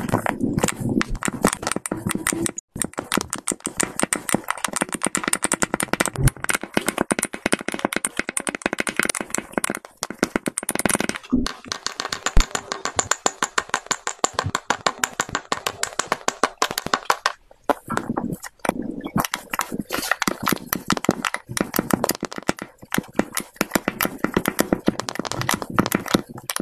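Kinetic sand being pressed and crumbled by a wooden block, giving a rapid close-up crackling and crunching with a few short pauses.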